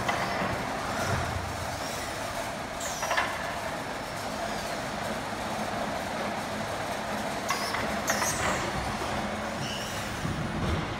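Fuji Ace EC201 palletizing robot and roller conveyors running: steady machine noise with a few short, sharp hissing squeaks, one about three seconds in and two close together around eight seconds in.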